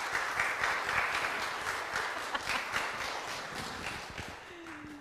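Congregation clapping: a dense patter of many hands that thins out and fades over the last second or so.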